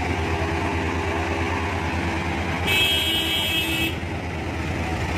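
Street traffic with vehicle engines running in a steady low drone; a vehicle horn blasts once for about a second, midway.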